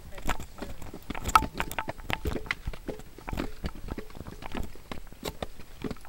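Handheld camera being carried while walking: irregular clicks and knocks of handling noise mixed with footsteps on gritty concrete, with faint voices in the background.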